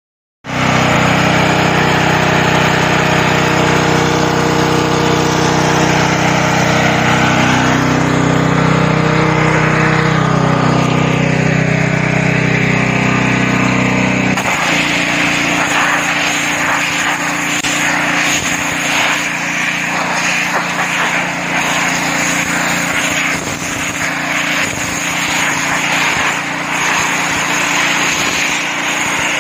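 BlackStone B-PW 11/230 petrol pressure washer's 224 cc four-stroke engine running steadily. About halfway the sound changes suddenly to the hiss of the high-pressure water jet striking a wooden board and tiles, with the engine still running under it.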